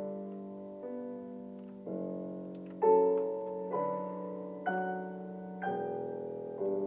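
Background piano music: a slow, gentle melody with a new note or chord struck about once a second, each fading before the next.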